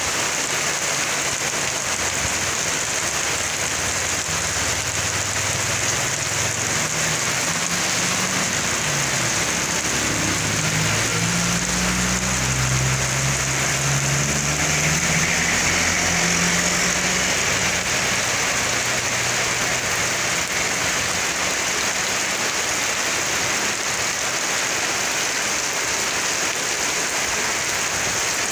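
Heavy rain falling steadily on a wet asphalt street. Midway, a small box truck's engine and tyres on the wet road swell and fade as it drives past, loudest about halfway through.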